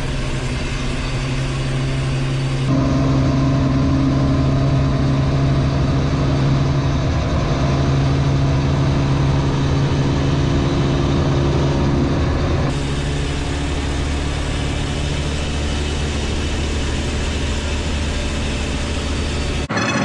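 FSC Żuk van's engine and road noise heard inside the cab at about 100 km/h: a steady drone that shifts abruptly in tone twice and breaks off near the end.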